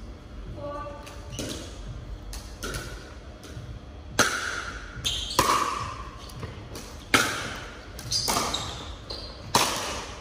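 Pickleball rally: sharp pops of paddles striking the hollow plastic ball, together with the ball bouncing on the wooden floor. There are about five hits roughly a second apart, starting about four seconds in, each ringing briefly in the hall.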